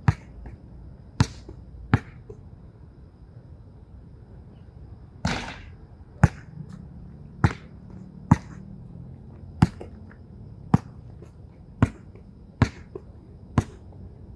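A basketball bouncing on an outdoor hard court: about a dozen sharp single bounces, spaced roughly a second apart. About five seconds in there is one longer, noisier impact.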